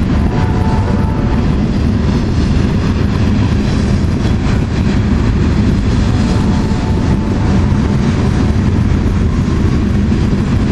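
Freight train of loaded taconite ore cars rolling past, a loud steady rumble, with faint high tones about a second in and again around seven seconds in.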